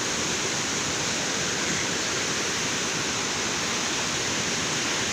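Waterfall rushing steadily, an even hiss of falling water with no breaks.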